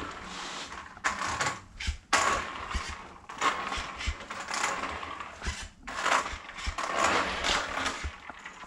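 Small electric RC quad bike model driven in short throttle bursts: its motor whirring in spurts about a second long with brief pauses, with knocks and rattles from the model's wheels and chassis.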